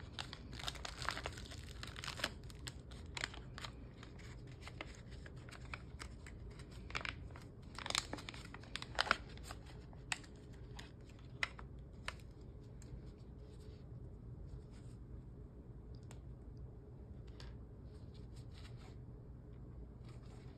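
Gloved hands opening medical supply packaging: plastic and paper wrappers crinkling and tearing, then several sharp clicks and taps as plastic needle and vacutainer-holder parts are handled and fitted together. The handling grows fainter in the second half.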